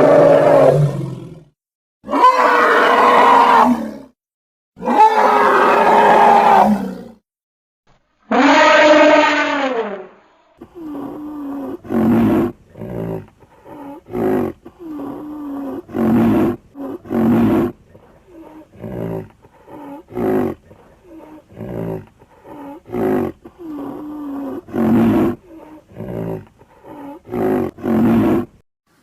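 Sound-effect calls of a large prehistoric mammal: four long, loud calls in the first ten seconds, the last with a rising then falling pitch, followed by a run of short calls with a falling pitch, about one a second.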